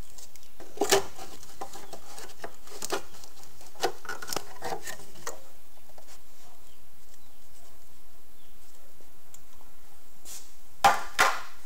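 Plastic upper timing belt cover on a Ford Zetec 2.0 engine being worked loose and lifted off, with scattered light knocks, clicks and rubbing of plastic against the engine. A short burst of louder clatter comes near the end.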